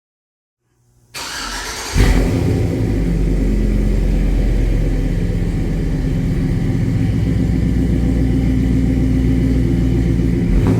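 A Chevy Tahoe's V8 is started through its newly repaired custom exhaust: the starter cranks briefly about a second in, the engine catches about two seconds in, and it then idles loudly and steadily.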